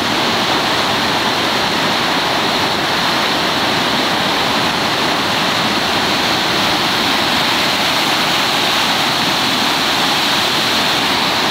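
Whitewater rapids at a river ledge: a steady, unbroken rush of churning water.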